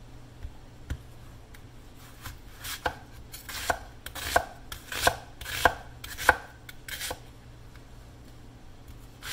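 Chef's knife slicing through a peeled whole onion and striking an end-grain wooden cutting board: about eight strokes, one every two-thirds of a second or so, each a short swish of the blade ending in a knock on the board. The strokes start about two seconds in and stop a couple of seconds before the end.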